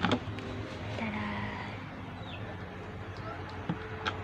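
Quiet background hum with a few light clicks of plastic hair-clipper parts and guide combs being handled, near the start and again near the end.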